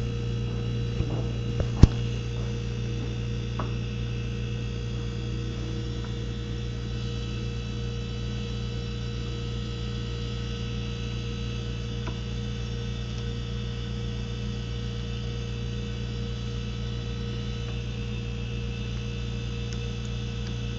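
Steady low electrical hum, with a few light clicks near the start and one sharp click about two seconds in as the compression fitting's nut and ferrule are handled.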